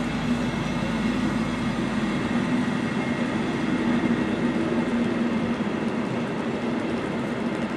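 Passenger train of coaches rolling slowly past, its wheels running on the rails with a steady low drone.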